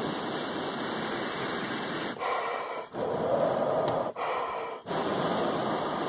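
A man blowing warm breath in long, steady exhales, close up, onto a small bird's feet to thaw them off the frozen metal fence rail. The breaths are separated by short pauses, about five in all.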